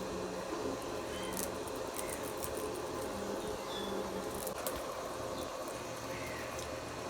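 Indian ringneck parrot making a few faint short chirps and sharp clicks over a steady low background hum.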